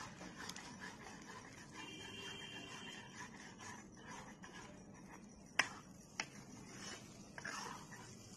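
Steel spoon scraping ground mustard-greens paste out of a steel pot into a kadhai, with two sharp metal taps a little past halfway as the spoon knocks against the pot rim.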